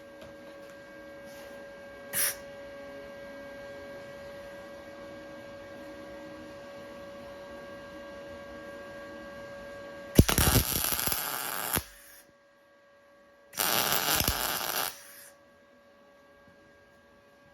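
Welding arc laying two tack welds of about a second and a half each, a loud crackling hiss, around ten and thirteen and a half seconds in, tacking bolts onto bar clamps. A steady hum runs underneath, with a brief sharp click about two seconds in.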